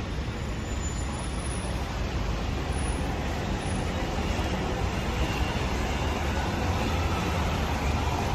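Street traffic: a steady wash of road vehicles passing, growing a little louder toward the end.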